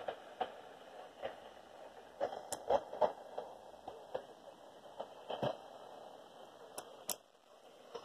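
Camera handling noise as the camera is moved against a bedspread: scattered clicks, knocks and rustles over a faint steady hiss, busiest a couple of seconds in and again near the end.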